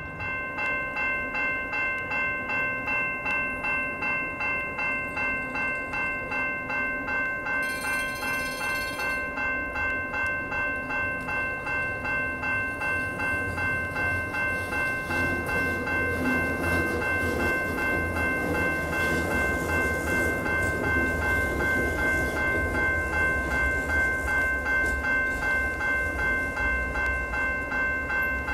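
Light-rail crossing warning bell ringing steadily, about two strokes a second. A low traffic rumble builds under it in the second half.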